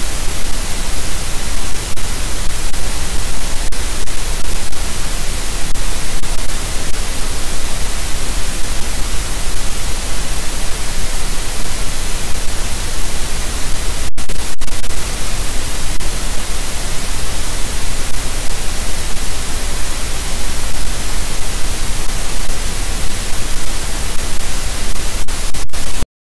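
Loud, steady static hiss from a nest camera's audio feed, with two momentary dropouts about fourteen seconds in.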